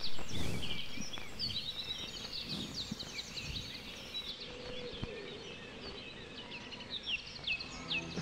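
Several birds chirping and singing outdoors, with some low rumbling in the first few seconds. Near the end one bird repeats a short falling call about twice a second.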